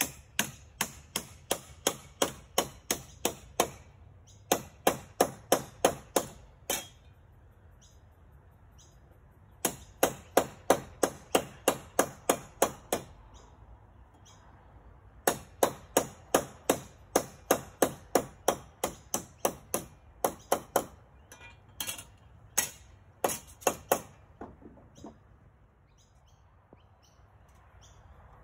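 Hand hammer driving nails into timber: sharp strikes at about three a second in four runs with short pauses between, then a few scattered taps near the end.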